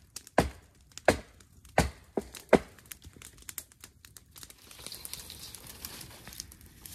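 Footsteps crunching in snow, about five sharp steps roughly 0.7 s apart, followed by lighter clicks and the rustle of dry dead branches.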